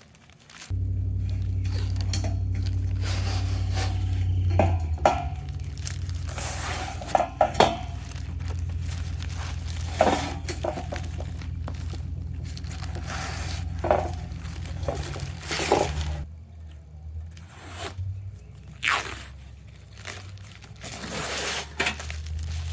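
Background music with low sustained bass notes, over handling noises: plastic wrap crinkling and tearing, and short clanks and scrapes of galvanized steel garden-bed panels.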